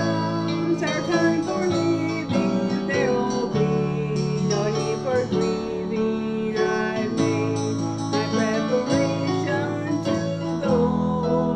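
Music playing: the opening of a song, with guitar leading the accompaniment.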